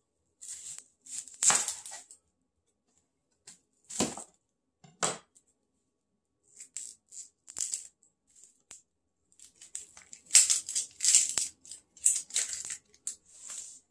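A knife cutting through a yellow onion onto a plastic cutting board, with two sharp knocks about four and five seconds in, and the onion's dry papery skin crackling and rustling as it is peeled off by hand, densest near the end.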